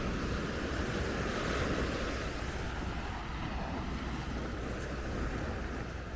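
Ocean surf washing on the beach, with wind buffeting the microphone as a steady low rumble. The wash swells about a second in and eases off after a couple of seconds.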